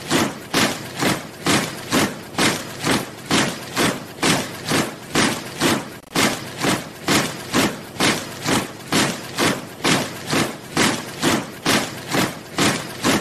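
Soldiers' boots marching in step, the footfalls striking the ground in an even rhythm of about two a second.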